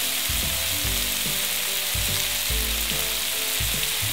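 Ground pork, peas and chilli frying in oil in a frying pan with a steady sizzle. A wooden spatula stirs the mixture, giving a few irregular low knocks against the pan.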